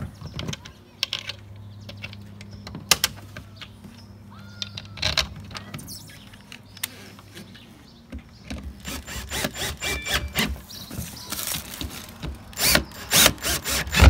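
Scattered clicks and knocks of the plastic brake-light housing being pushed into place, then a Ryobi One+ cordless drill run in short trigger bursts, driving the screws that fasten the light; the bursts are loudest near the end.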